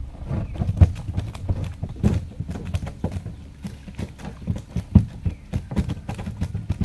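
Live shrimp being shaken out of a collapsible net trap into a plastic bucket. A run of irregular clicks and taps as the shrimp flick against the bucket and the trap rattles, with two louder knocks about a second in and near five seconds.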